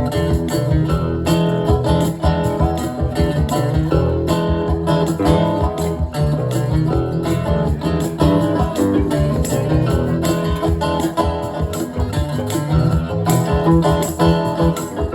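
Live band music: an instrumental passage led by strummed guitar over a low bass line and a steady run of drum hits.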